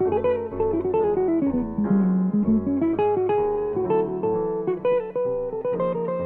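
Jazz guitar playing a single-note melodic solo line, with grand piano accompaniment underneath.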